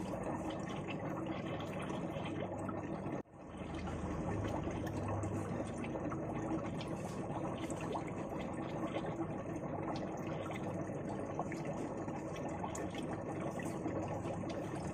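Steady bubbling and gurgling of water in a small aquarium, from air bubbles rising off an air stone. The sound briefly cuts out about three seconds in, then carries on.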